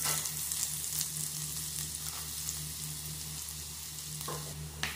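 Chopped garlic sizzling and crackling in hot oil in a saucepan, just after being tipped in.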